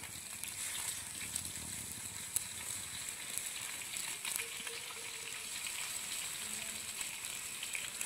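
Pieces of snakehead fish sizzling in hot oil in a pan over a wood fire: a steady frying hiss with scattered crackles.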